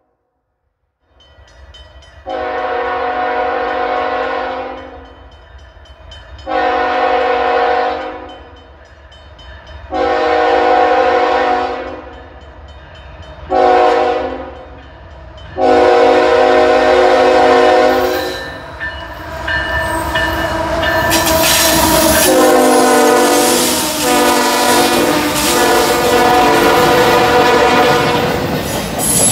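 Multi-chime air horn of a pair of GE ES44AC freight locomotives sounding for grade crossings: five blasts, the fourth one short and the rest long. The train then comes close and passes, loud with engine rumble and wheel noise, and the horn blows again with its pitch falling as the lead locomotive goes by.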